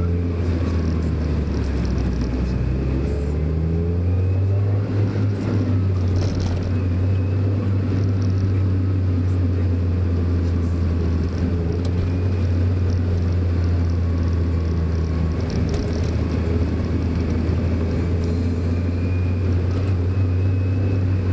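Mazda Roadster driving, its engine and tyres making a steady low drone as heard onboard, the engine note drifting gently up and down with the throttle.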